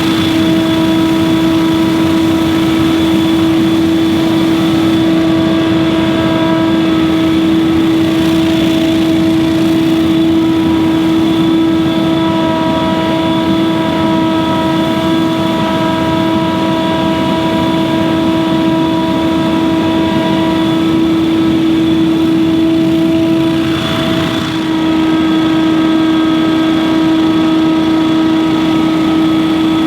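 Scag Windstorm stand-on leaf blower running at a steady speed. Its engine and fan give a loud constant whine that stays at one pitch, with a brief dip about four-fifths of the way through.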